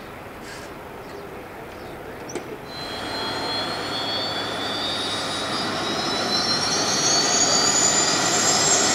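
Pilatus PC-21's turboprop engine running on the ground, a Pratt & Whitney Canada PT6A turbine. About a third of the way in its whine comes up and then rises steadily in pitch and grows louder as the engine spools up.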